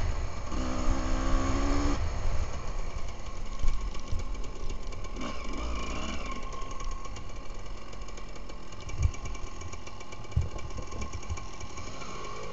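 Enduro dirt bike engine heard from the rider's own bike, running at higher revs for about the first two seconds, then dropping to low, steady revs as the bike slows. A couple of short thumps come near the end.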